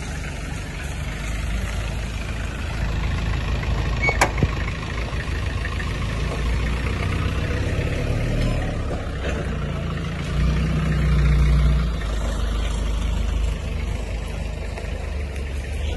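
Engine of a cab-over light truck running at low speed as it manoeuvres, with a sharp knock about four seconds in. The engine runs louder for a couple of seconds about ten seconds in.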